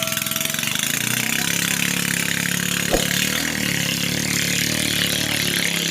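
Standard MZ 6.5 engine of a racing needle boat running steadily, with a short sharp click about three seconds in.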